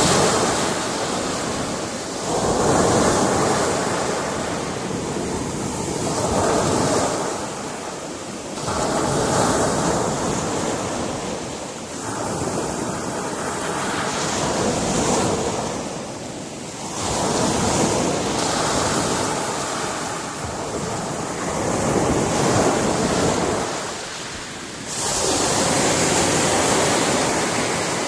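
Sea surf breaking against a rocky shore: waves surging and washing back in repeated swells every few seconds, with some wind.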